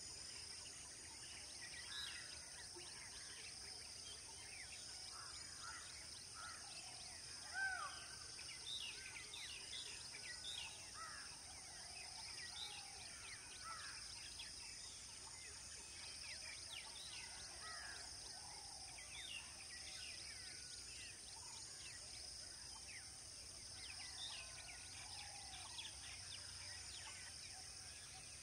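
Many wild birds calling and chirping in short whistled notes over a steady high-pitched drone. One call about a quarter of the way in stands out louder than the rest.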